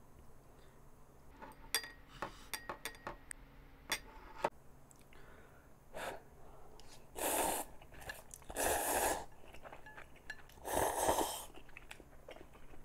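Instant ramyeon noodles slurped from a bowl, three loud slurps in the second half, after a run of light clicks of chopsticks against the dishes.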